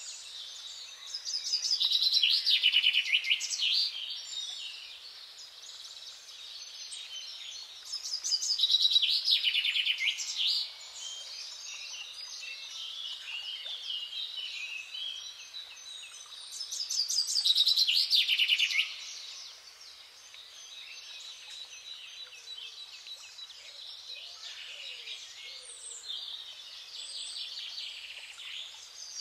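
Dawn chorus of songbirds: one bird sings a loud, fast, trilled song phrase three times, about seven seconds apart, over quieter continuous birdsong.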